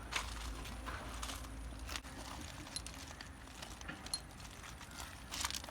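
Scattered light metallic clinks and knocks from metal parts and tools being handled, with a low engine rumble that drops away about two seconds in.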